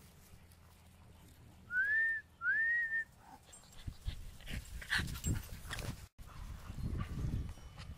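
A person whistles twice to call puppies: two short whistles about two seconds in, each rising and then holding. Soft rustling and bumps follow in the second half.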